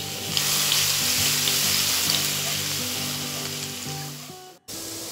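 Chopped garlic frying in hot oil in a wok, a steady sizzle that fades near the end and cuts out briefly.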